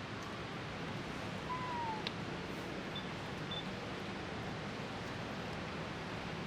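Steady outdoor background hiss. A short falling whistle comes about one and a half seconds in, a sharp click about two seconds in, and two brief high peeps about half a second apart around three seconds in.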